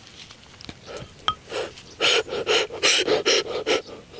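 A person panting in quick breathy bursts, about three a second, over the second half.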